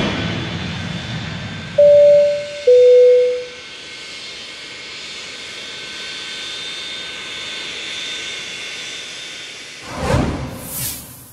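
Steady jet airliner engine noise with a thin high whine running through it. About two seconds in, a loud two-note chime sounds, the second note lower. Near the end a short whoosh sweeps past.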